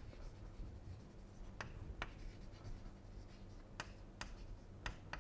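Chalk writing on a chalkboard: a handful of short, sharp chalk strokes and taps, coming in quick pairs, over a faint steady low hum.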